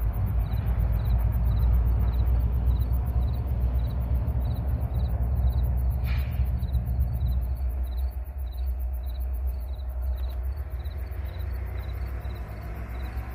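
Low rumble of a pair of diesel pusher locomotives running light, fading into the distance and dropping away about seven seconds in. Crickets chirp steadily, about two to three chirps a second.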